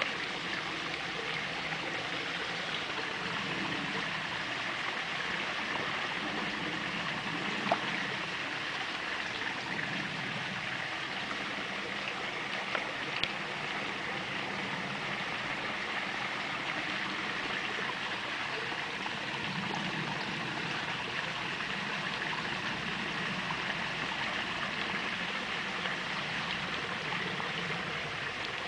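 Steady running water in a koi pond, a continuous trickling stream, with a few short clicks or small splashes about 8 and 13 seconds in.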